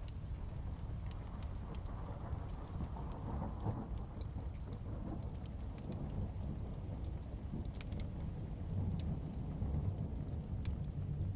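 Heavy rain with low rolling thunder that swells about two seconds in and again near the end. Scattered sharp little ticks sound over it.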